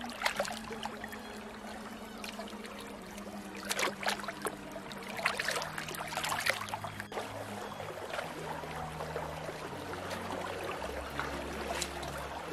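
A hand splashing and churning in a shallow running stream as it gropes along the streambed, over the steady rush of the flowing water; the splashes come in surges, strongest about four seconds in and again from five to seven seconds.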